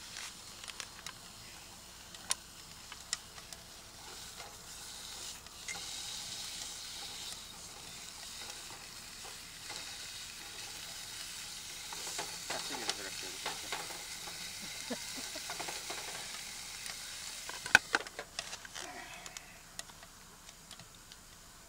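Food sizzling as it fries in a pan, with a few sharp clicks of metal tongs against the pan. Near the end comes a louder metal clatter as the lid goes on, and the sizzle is quieter after it.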